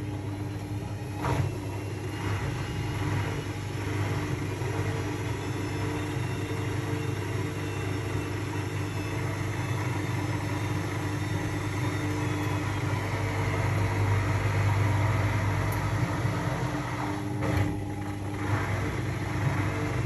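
Indesit slim front-loading washing machine on its spin cycle: the drum motor runs with a steady hum and a faint rising whine, growing a little louder past the middle, with a couple of brief knocks.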